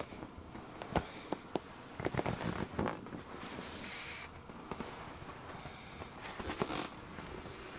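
Hand rubbing and pressing on an inflated vinyl toy fox: scattered clicks and rubbing sounds, with a brief hissing rub about halfway through.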